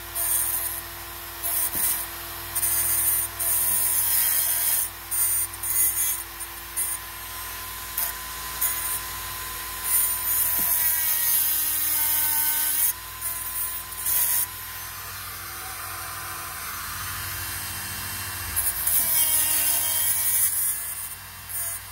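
Dremel rotary tool running with a steady whine while grinding off a metal tab on an oil pump pickup tube. Short bursts of grinding noise come and go as the bit is touched to the metal, with longer passes about a third of the way in and near the end, when the motor's pitch sags slightly under the load.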